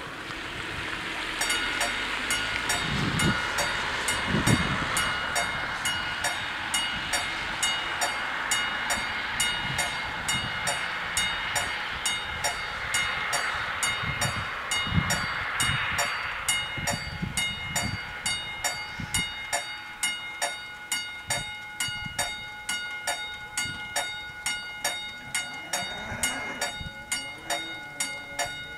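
Level-crossing warning bells ringing at about two strikes a second, starting about a second in, with passing road traffic underneath. Near the end a low rising motor hum starts as the barrier arms lower.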